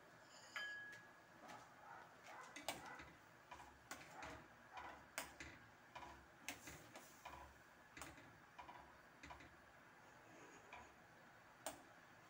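Metal ladle stirring coconut milk in a stainless steel frying pan, with quiet, irregular clinks and scrapes against the pan. A sharper clink comes near the end.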